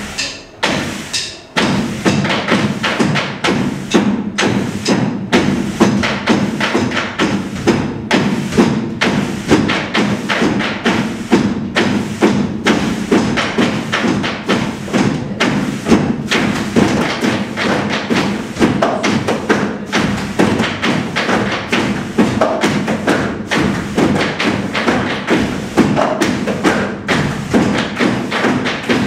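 Sticks tapped and thumped on a stage floor in a steady rhythm, with music.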